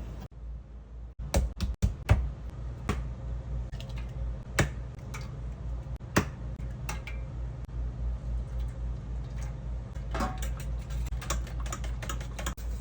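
Kitchen handling sounds: irregular sharp clicks and taps, coming closer together near the end, over a low steady hum.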